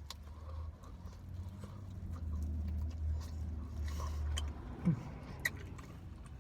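A man biting into and chewing a piece of chicken, with a few small wet mouth clicks and a short low "mm" just before five seconds in, over a steady low hum.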